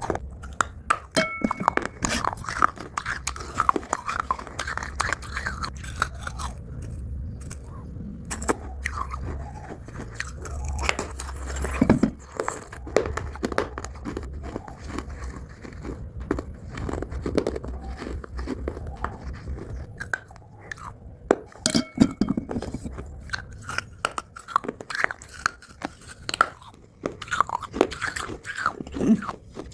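Close-miked biting and chewing of dry Multani mitti (fuller's earth clay) chunks: many sharp, crisp crunches in quick succession, with short pauses.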